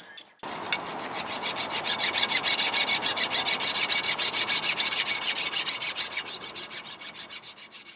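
Fast, evenly spaced rasping clicks from a hand tool working on a car's rear brake hub. They start about half a second in, grow louder, then fade away near the end.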